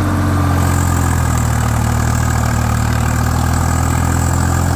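Swaraj 843 XM 4x4 tractor's three-cylinder diesel engine working under load as the clutch is let out and it pulls a harrow through heavy soil; its note holds steady, showing no drop in revs. About half a second in, a thin high steady whistle comes in, the whistle typical of Swaraj engines.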